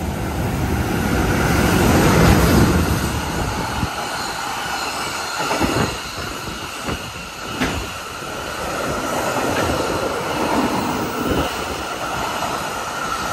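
Electric-hauled container freight train passing through a station at speed. A heavy rumble is loudest about two seconds in as the locomotive goes by, then the wagons roll past with a steady rolling noise, a high ringing tone and repeated sharp knocks from the wheels.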